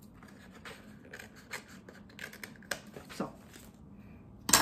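Scissors snipping through a sheet of Cricut plastic film cut off a roll, a series of short cuts, with one louder sharp crackle near the end.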